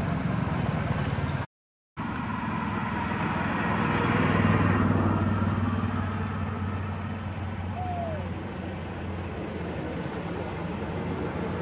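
Road traffic: vehicle engines running with a low hum, swelling about four to five seconds in as traffic passes. The sound drops out for half a second near the start.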